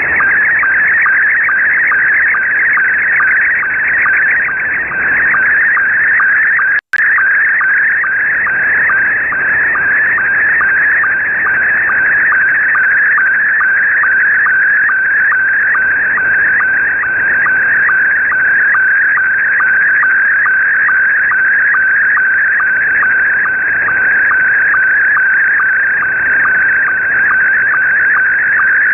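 Slow-scan television (SSTV) picture signal received on a shortwave radio in upper sideband: a continuous warbling stream of audio tones, marked by a steady rapid ticking of line-sync pulses over band hiss. The audio cuts out for an instant with a click about seven seconds in.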